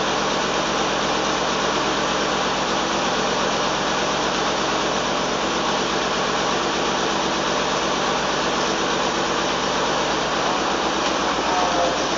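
1990 Cadillac Sedan DeVille's V8 engine idling steadily, heard in an echoing enclosed garage.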